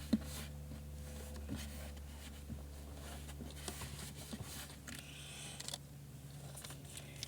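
Faint handling noises of a cloth being rubbed over the plastic tub of a portable washing machine, with a few light knocks and a short stretch of rubbing about five seconds in, over a steady low hum.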